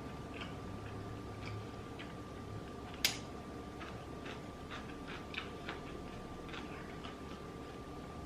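Quiet eating sounds: scattered small mouth clicks and smacks from chewing spicy rice cakes and noodles, with one sharper click, like a utensil tap, about three seconds in. A faint steady hum runs underneath.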